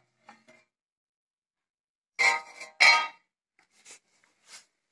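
Two short metallic clanks a little under a second apart, then a few faint ticks, from the amplifier's sheet-metal cabinet and its removed top cover being handled.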